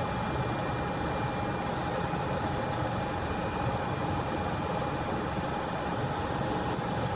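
Fume extractor fan running: a steady whir with a faint constant tone, and a few tiny ticks.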